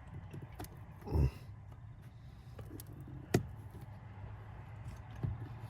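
Faint handling sounds: a few light ticks and one sharp click a little over three seconds in, with a brief low murmur about a second in, over a low steady hum.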